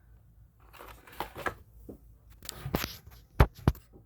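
Paper and cardboard fast-food packaging handled, rustling and crinkling in short bursts, with two sharp clicks close together near the end.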